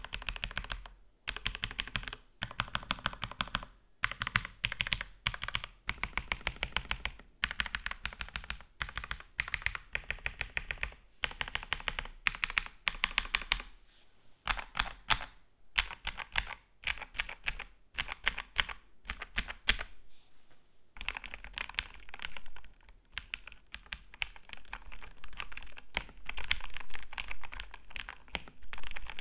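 Typing on an Xtrike Me GK-979 mechanical keyboard fitted with lubed Akko Matcha Green switches. Rapid runs of keystrokes are broken by short pauses, and the typing becomes steadier and more continuous after about twenty seconds.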